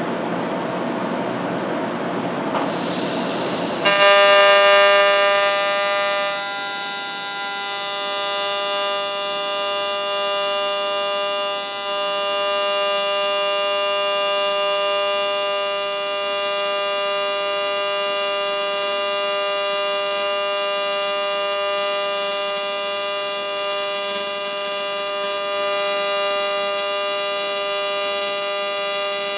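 Welding arc on the aluminium snout of a transmission case: after a few seconds of hiss, the arc strikes about four seconds in and holds a steady, high buzz.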